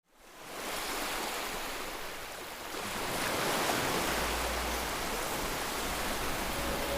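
Steady rushing ambient noise that fades in at the start, with a low hum joining about four seconds in.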